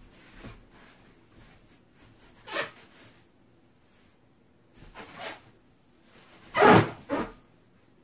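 A large latex balloon being pressed and sat on: a few short rubbing, squashing noises, the loudest one about two-thirds of the way through, with no pop.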